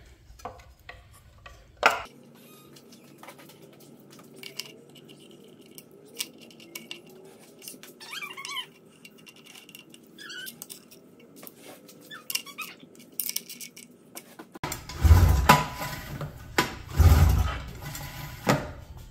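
Light metal clicks and clatter of a rewind starter housing being fitted back onto an outboard motor's powerhead, with a brief squeak partway through. Near the end come two loud, heavy thumps with clatter and a further sharp knock.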